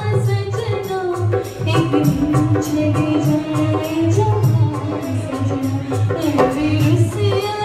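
A girl singing a held, sliding melody into a microphone, accompanied live by an electronic keyboard and a hand drum beating a steady rhythm.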